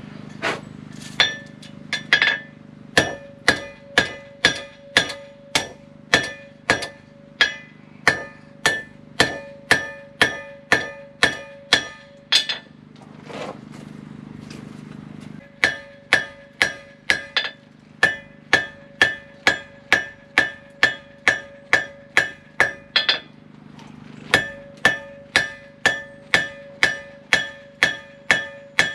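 Hand hammer striking hot railroad-spike steel on a Hay Budden anvil at about two blows a second, drawing out a knife blade; each blow rings clearly off the anvil. The blows stop for a few seconds about halfway through, then resume, with a short break again near the end.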